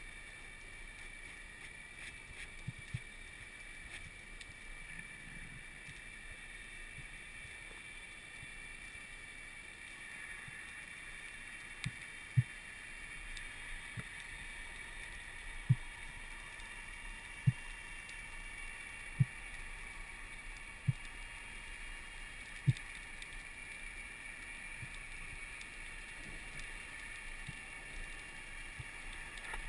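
Underwater ambience heard through a camera housing: a steady hiss, with a run of short, low thumps about every 1.7 seconds through the middle.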